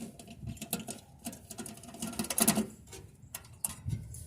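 Screws being backed out of a scrap metal part: an irregular run of small metal squeaks, clicks and scrapes, with a louder scraping stretch about two seconds in.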